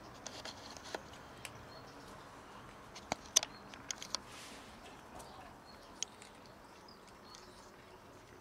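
Cats eating dry kibble: scattered crisp crunches and clicks of the pellets being bitten and chewed, the loudest cluster a little past the middle.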